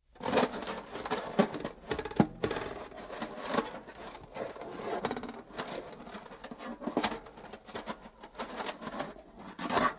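Quiet free-improvised jazz starting suddenly out of silence: scattered, irregular taps, clicks and rattles with a few short pitched notes, no steady beat.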